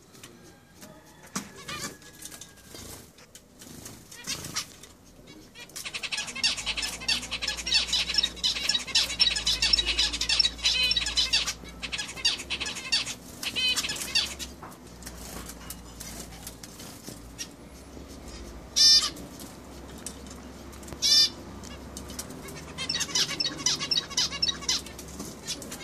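Several zebra finches calling. After a quieter start comes a busy stretch of rapid, overlapping high calls, then two louder single calls a couple of seconds apart, and more chatter near the end.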